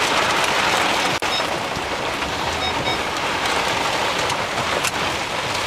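Heavy rain beating down on a car in a severe thunderstorm, a loud, steady hiss with a brief dropout about a second in.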